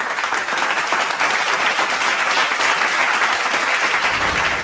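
Steady applause from many people clapping together.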